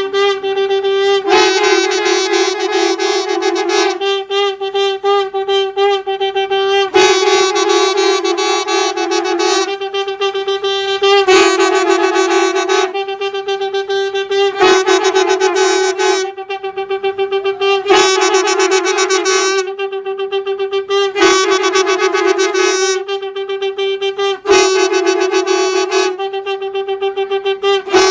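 Valampuri conch shells blown in a continuous performance. A steady, held note runs throughout, with a louder, brighter blast over it about every three seconds.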